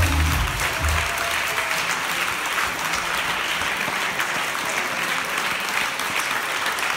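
Audience applauding steadily; the cha cha music's bass beat stops about a second in, leaving only the clapping.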